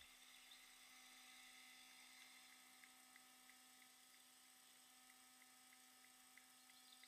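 Near silence: a faint steady hum with a few faint ticks.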